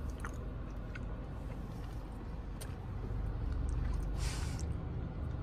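Steady low hum inside a car's cabin while a man chews a bite of cinnamon roll, with a few small clicks and a short rustle about four seconds in.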